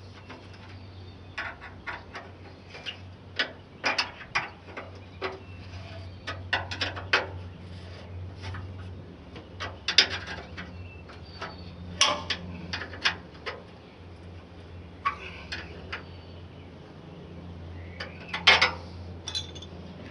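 Hand tools clicking and clanking against the metal of a corn picker while its belts are worked on: irregular sharp strikes, a few of them louder, with a steady low hum underneath.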